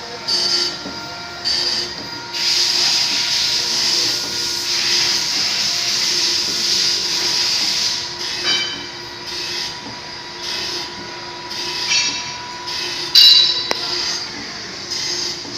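Compressor running, with short hisses of air repeating about once a second and one long hiss lasting several seconds, over a faint steady hum.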